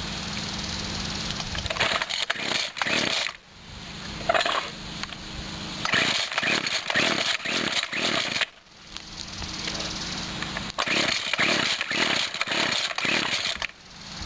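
1997 Husqvarna 24cc two-stroke string trimmer engine idling, then given throttle three times. Each time it revs up rough and choppy, bogs and nearly dies before falling back to idle, the symptom of a bad carburetor diaphragm.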